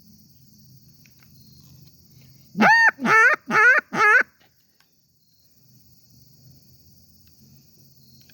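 Homemade reed duck call blown in four short quacks in quick succession, each rising and falling in pitch, starting between two and three seconds in. The call is being test-blown while its reed is tuned.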